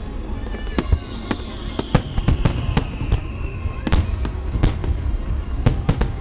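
Fireworks display: aerial shells bursting in a rapid string of sharp bangs over a low rumble, with a long whistle that falls slowly in pitch through the first half.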